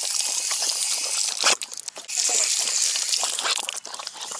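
Water running from a pet drinking fountain's spout and splattering on wet concrete while a dog laps at the stream. A sharp click comes about a second and a half in, and the sound drops briefly before the water runs again.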